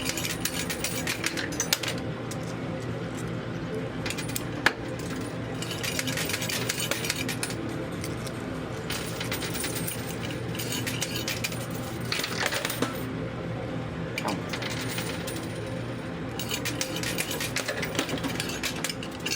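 Quarters clinking and clattering through a coin pusher machine in repeated runs of several seconds, over a steady hum.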